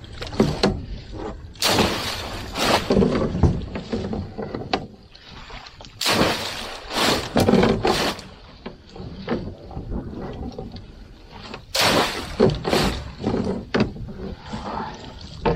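River water splashing in three bouts a few seconds apart as a wet hoop net is fed over the side of a metal boat, with the net dragging over the gunwale.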